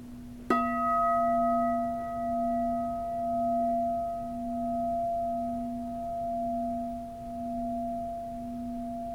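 Heavy, thick-walled bronze Buddhist bell struck once with its striker about half a second in, then ringing on with a long sustain. The low hum swells and fades slowly while the higher overtones die away over the next few seconds.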